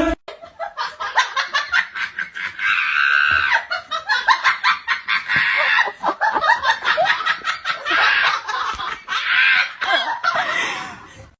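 Human laughter, coming in quick repeated bursts with a few short pauses.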